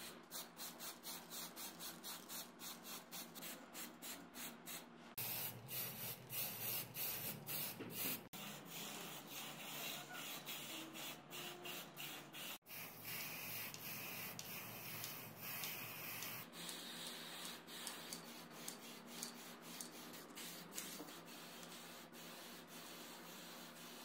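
Aerosol spray paint can hissing as metal ceiling fan parts are spray painted. It comes first in quick short pulses, then in longer sprays that break off abruptly a few times.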